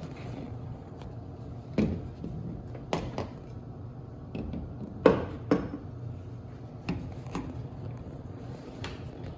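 A scattered series of sharp knocks and clinks, about eight in all, as hard objects are handled and set down, the loudest two close together about five seconds in, over a steady low hum.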